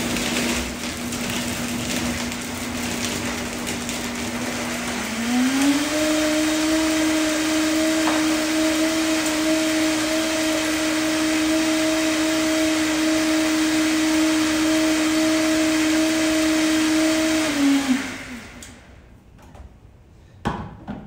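Countertop blender blending a fruit-and-avocado smoothie. The motor runs steadily, rises in pitch to a higher speed about five seconds in, holds there, then winds down and stops near the end, followed by a couple of light knocks.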